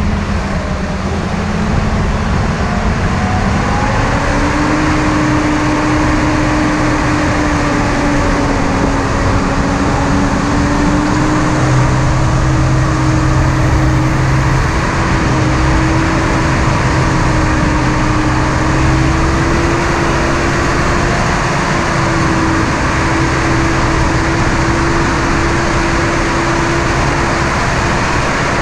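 Jeep CJ5 engine running steadily under light load as it drives slowly over gravel, its hum rising in pitch about four seconds in and then holding level, over a steady rushing noise.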